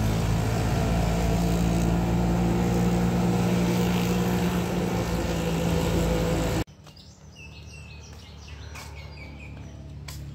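Auto-rickshaw (tuk-tuk) engine running steadily, heard from inside the open passenger cabin with road noise. About two-thirds of the way through it cuts off abruptly to much quieter outdoor ambience with birds chirping.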